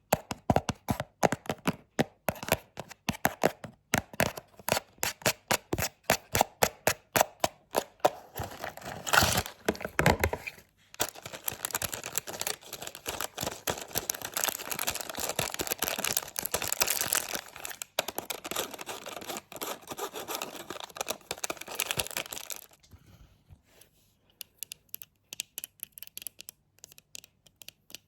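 Close-miked tapping and knocking on objects: quick, sharp taps about three or four a second for the first eight seconds, then a long dense crackling, rustling stretch, then sparse light clicks near the end.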